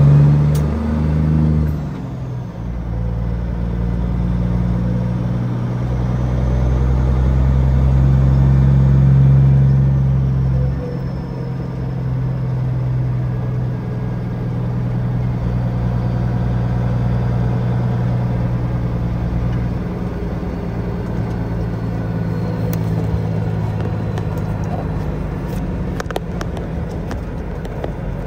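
Peterbilt 379 semi truck's diesel engine under way, a steady low drone that builds for several seconds, drops suddenly about eleven seconds in, then runs on evenly.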